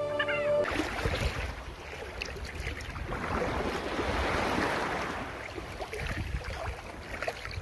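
Outdoor wind and rushing water noise, with wind buffeting the microphone in a low rumble.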